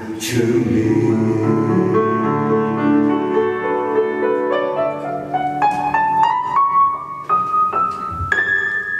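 Solo piano playing the closing bars of a song: sustained low chords, then a slow rising run of single notes, stepping up note by note to a high note held near the end.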